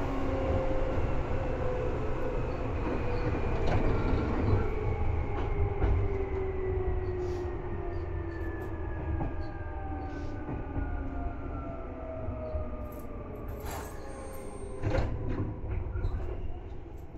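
Seibu 2000 series electric train slowing down: its traction motor and gear whine falls steadily in pitch over the rumble of wheels on rail, which gradually quietens, as the train comes in to stop. A couple of sharp knocks near the end.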